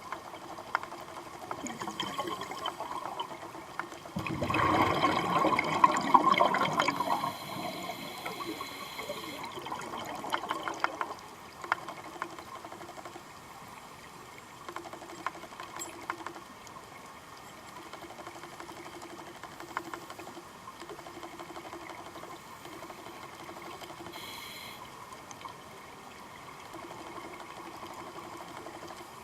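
Underwater scuba-dive ambience. About four seconds in, a loud rush of exhaled regulator bubbles lasts a few seconds and fades, leaving a quieter steady bubbling with faint clicks.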